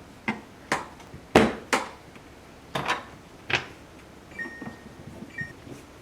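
A series of about seven sharp knocks and clicks in the first four seconds, then two short high tones about a second apart.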